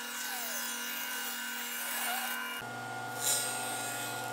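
Table saw cutting thin plywood strips: the blade rasps through the wood over the saw's steady hum, with a short louder burst a little after three seconds.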